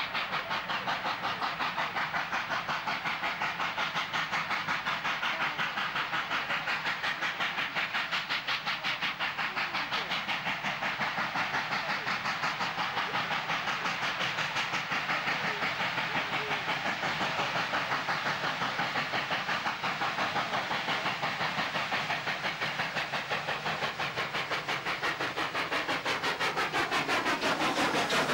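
NSW 59 class 2-8-2 steam locomotive working a passenger train, its exhaust chuffing in quick, even beats. It grows louder near the end as it draws close.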